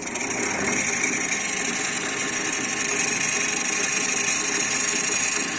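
Bench-grinder wheel spinning on a mandrel in a small milling machine attachment and grinding a steel planer blade: a steady motor run under a hissing grind. The sound builds over the first second and grows louder about three seconds in.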